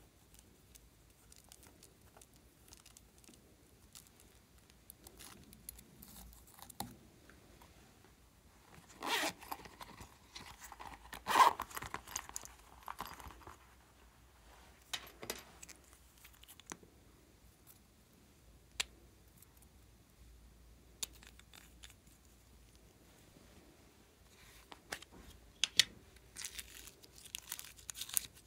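Close-up handling noise of hands working plastic packaging, toys and a piping bag: scattered soft clicks and rustles, a louder stretch of rustling about nine to thirteen seconds in, and a cluster of sharp clicks near the end.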